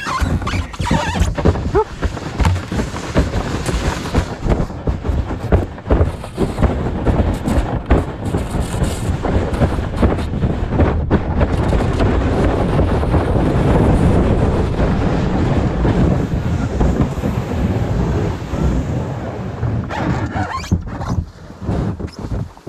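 Plastic whitewater kayak (LiquidLogic Remix XP9) sliding down a slope of packed snow: a continuous rough scraping hiss from the hull, broken by many small bumps and knocks. It dies away near the end as the kayak slows to a stop.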